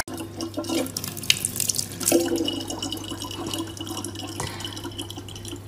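Thin stream of water from a faucet running steadily into a large plastic water jug.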